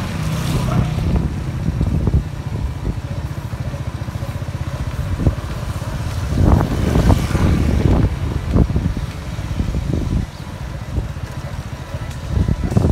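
Motorcycle engine running with low wind rumble on the microphone while moving along a rough, muddy road, with several louder surges about six to nine seconds in.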